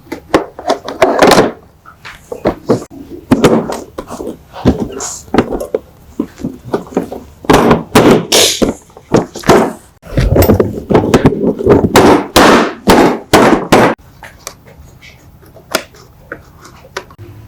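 A series of loud, irregular knocks and thuds, with a denser run of heavier banging from about ten to fourteen seconds in.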